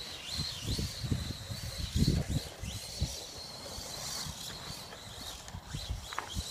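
LaTrax SST RC truck's brushless 4100kv motor whining, its pitch gliding up and dropping back as the throttle is worked, over low, irregular rumbling.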